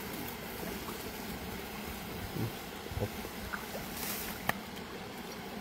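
Steady outdoor background noise with a few faint clicks and rustles, and one sharper tick about four and a half seconds in.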